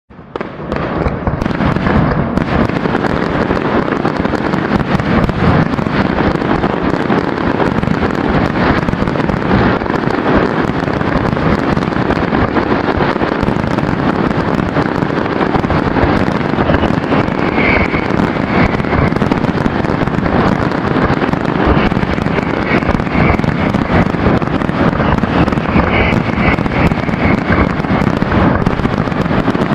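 Fireworks display: a dense, unbroken barrage of bangs and crackling that starts about half a second in.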